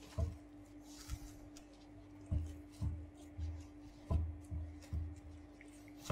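Plastic cling film crinkling as hands press and smooth it onto the surface of chocolate ice cream base in a stainless steel bowl, with a dozen or so soft, irregular thuds from the pressing, over a steady faint hum.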